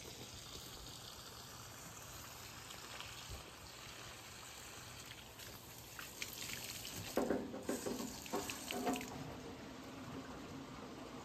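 Garden hose running water into the fill port of a steel drum lawn roller, filling it with water for weight: a steady rush of water, with a louder, uneven stretch from about seven to nine seconds in.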